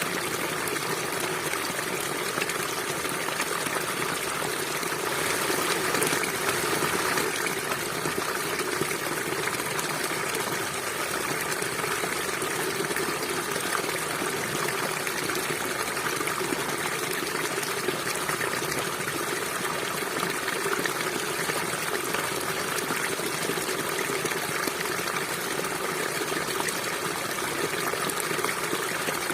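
River water flowing steadily, a continuous rushing of water that swells slightly about six seconds in.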